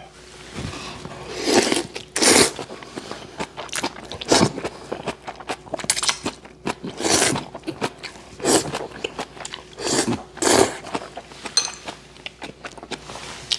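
A man slurping spicy ramen noodles in a long series of short, loud slurps, chewing in between.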